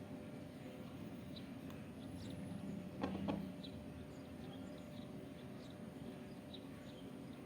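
Faint, short, high chirps of small birds, scattered every second or so, with two sharp knocks in quick succession about three seconds in.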